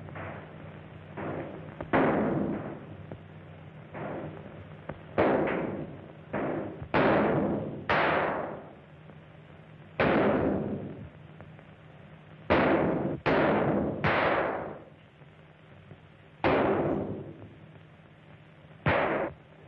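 A gunfight: a dozen or more pistol and rifle shots at irregular intervals, each with a long ringing echo, on an old, thin-sounding film soundtrack.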